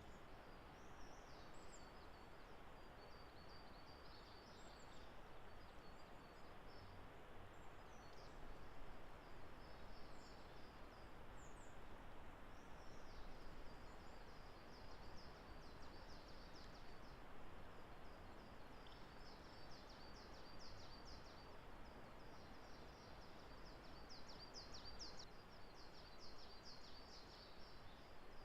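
Faint woodland ambience: a steady background hiss with many small, high-pitched bird chirps and twitters from distant birds, busier in the second half.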